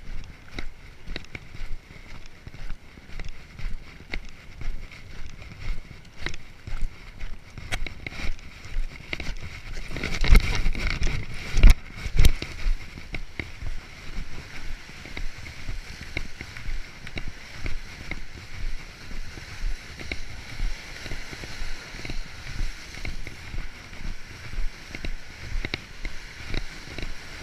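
Footsteps at a steady walking pace on gravel and concrete. About ten seconds in, a gust of wind buffets the microphone for a couple of seconds.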